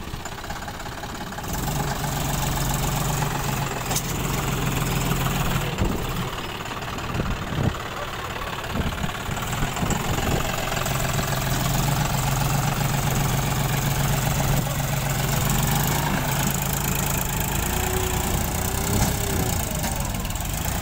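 John Deere 5050D tractor's three-cylinder diesel engine running hard under heavy load as the four-wheel-drive tractor strains in deep mud to shift a bogged, loaded trolley. The revs come up about a second and a half in, drop back briefly a couple of times, then hold high and steady.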